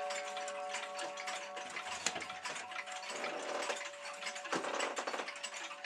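Badenia Lucca regulator wall clock: its gong ringing out in steady tones that slowly fade, over the ticking of the movement. Two bursts of rapid mechanical rattling from the clockwork come about three and about four and a half seconds in.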